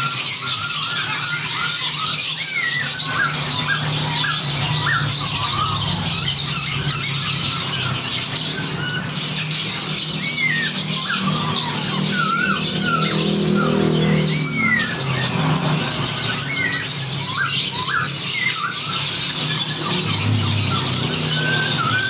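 Many songbirds chattering and whistling over one another in a dense, layered mix, with quick rising and falling calls overlapping throughout. A steady low drone runs underneath.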